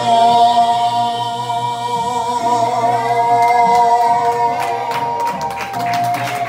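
A man singing into a microphone over karaoke backing music, holding one long note with vibrato. From about four and a half seconds in, a few people clap.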